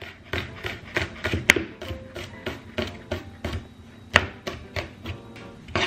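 Chef's knife mincing garlic on a plastic cutting board: a quick, irregular run of sharp knocks as the blade strikes the board.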